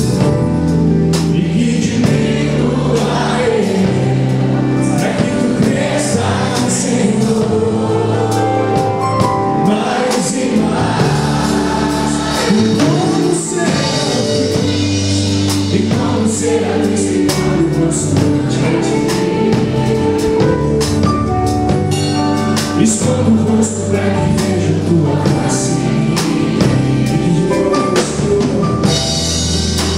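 Live gospel worship song: voices singing over acoustic guitar, electric bass and a drum kit, with a steady beat.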